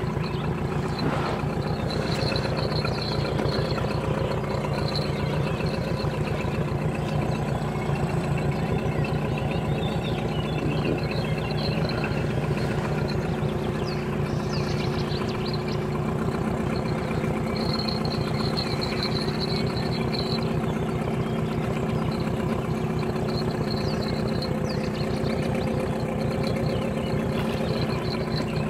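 Boat outboard motor running steadily at low speed while the inflatable boat moves along, heard from on board.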